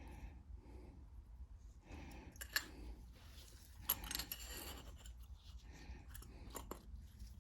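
Small metal parts being handled: light clicks and rubbing, with two sharper clicks about two and a half and four seconds in.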